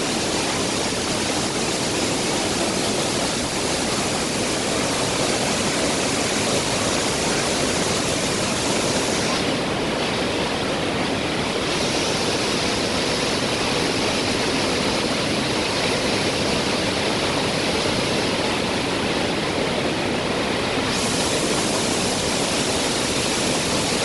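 Pailón del Diablo waterfall, a large cascade of heavy water falling in a steady, unbroken rush.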